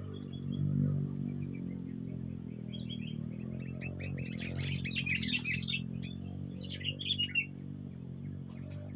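Small songbirds chirping in short calls, which thicken into a dense burst of rapid chirps about halfway through and again a little later, over a steady low hum.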